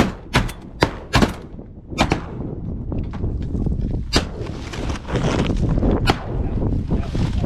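Shotguns firing at incoming ducks: a fast volley of four shots in the first second or so, then single shots about two seconds apart.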